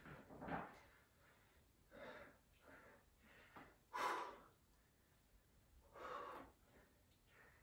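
Faint breathing of a man doing single-arm dumbbell rows: several short breaths timed with the reps, the loudest about four seconds in and about six seconds in.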